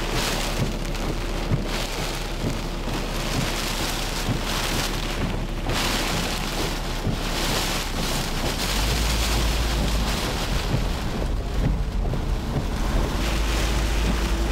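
Heavy tropical-storm rain driving against a car's windshield and body, heard from inside the car, in waves of louder and softer hiss. A low rumble comes in about halfway through.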